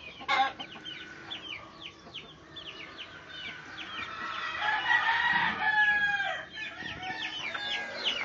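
Young chickens peeping: a steady run of short, high, falling chirps, with a longer drawn-out call about five seconds in.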